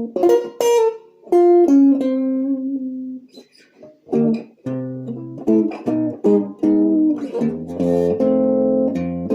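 1960 Guild T100 electric guitar on its neck pickup with the tone knob rolled down, played clean through a tube amp with no reverb: jazzy single notes and chords, a short pause about three seconds in, then a fuller chord ringing on near the end.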